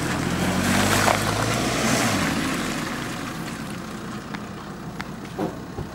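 Jeep Wrangler's engine pulling under load up a muddy slope, fading steadily as it drives away. A few light clicks near the end.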